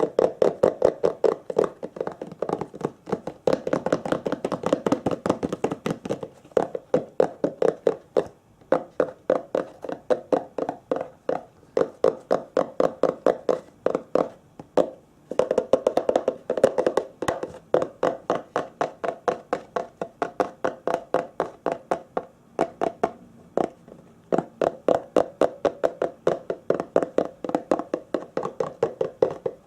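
Rapid tapping, several taps a second, in runs broken by short pauses.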